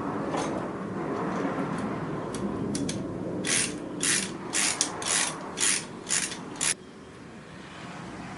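Hand socket ratchet clicking in a quick run of about eight bursts, roughly two a second, as it backs off a thermostat-housing nut, then stopping abruptly. Before it there is rustling handling noise with a few faint clicks.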